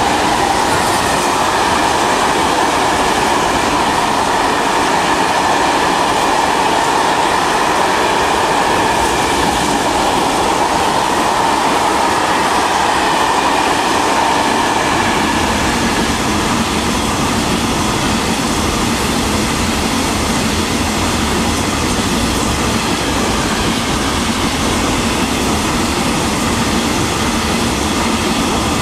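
Long freight train of hopper wagons rolling past. Its wheels on the rails make a steady, continuous noise with a faint high ringing tone over it.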